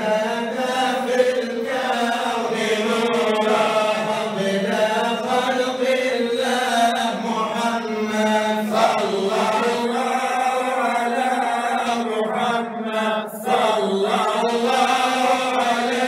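Male voice chanting Arabic devotional praise (madih) of the Prophet through a microphone, a continuous melodic chant with long held notes and a brief drop in loudness about twelve seconds in.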